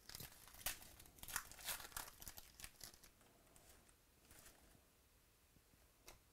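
Foil trading-card pack wrapper being torn open and crinkled by hand: a quick run of sharp crinkles over the first three seconds, then a few faint rustles as the cards are handled.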